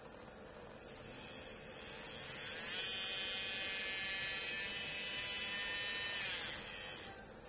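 Electric nail drill handpiece motor whining as the speed knob is turned up: the pitch rises over about a second, holds steady for a few seconds, then falls away as the speed is turned back down.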